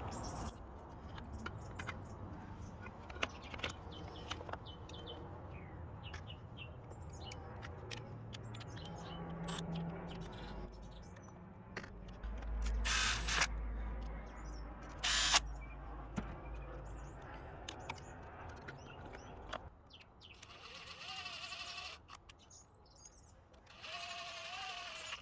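A power driver with a socket running in two short bursts of steady motor whine near the end, spinning in the pump-head bolts of a pressure washer. Before that, handling clicks from tools and parts, with two louder knocks about halfway through.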